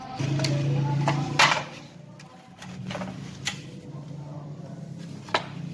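Clicks and knocks of wires and fittings being handled against a sheet-steel panel plate, the loudest about a second and a half in, over a steady low hum that stops at about that point.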